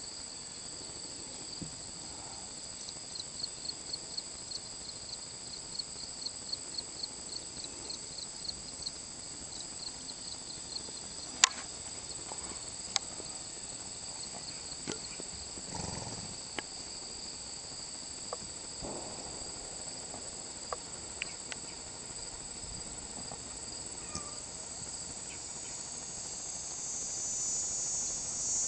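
A steady high-pitched insect chorus. A few seconds in, a run of chirps at about four a second comes through for several seconds, with a few sharp clicks a little later. The chorus grows louder near the end.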